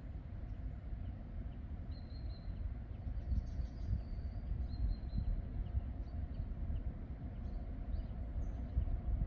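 Small birds chirping in short high calls over a steady low rumble.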